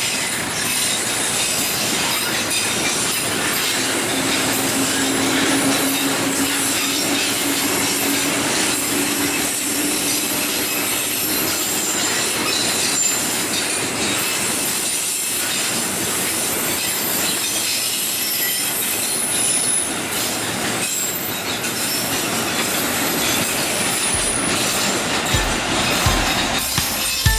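Container freight train rolling past: a steady rumble and clatter of flat wagons' wheels on the rails, with a thin high squeal of wheels against the rail. A held low tone joins in for several seconds near the start.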